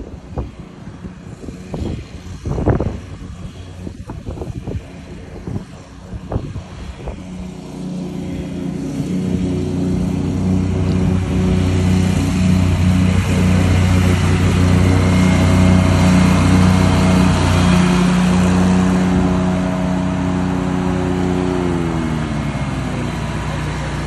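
Engine of a Wright Stander ZK commercial stand-on mower running under load, growing steadily louder as the mower comes closer, then dropping in pitch near the end as it slows down. A few sharp knocks sound in the first seven seconds.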